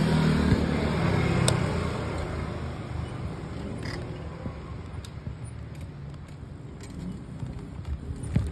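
A motor vehicle's engine hum fades away over the first two seconds. After that comes quieter road and traffic noise with scattered small clicks and rattles.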